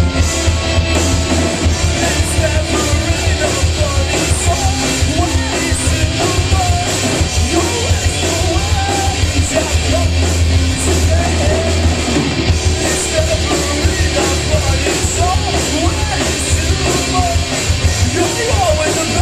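A live rock band playing loud: drums, electric guitars, bass guitar and keyboard, with a singer's voice over them. Heard from the crowd through a pocket camcorder's microphone.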